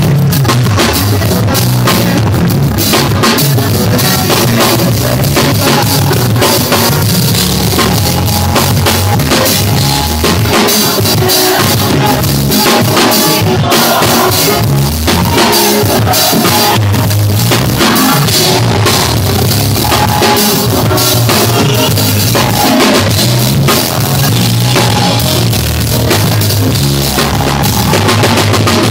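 Acoustic drum kit played loudly and without a break, close to the microphone: cymbals, snare and bass drum in a continuous groove, with steady low notes underneath.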